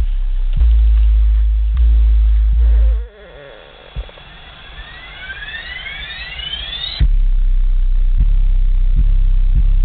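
Car audio subwoofers pounding out deep, loud bass music. About three seconds in it cuts out as the CD track is changed, quiet rising synth sweeps follow, and about seven seconds in a new deep bass line comes in loud with a regular beat.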